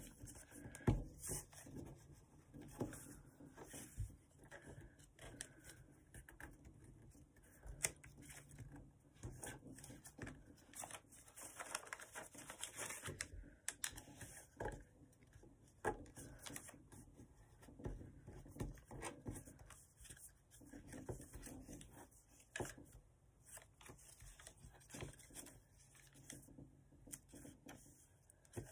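Notebook paper being folded and creased by hand: faint, irregular crinkles, rustles and small taps as fingers press and push a fold into place.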